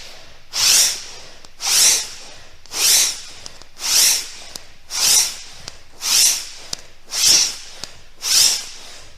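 A person breathing out forcefully in a steady rhythm, about one sharp hissing breath a second, eight in a row, during a vigorous yoga exercise.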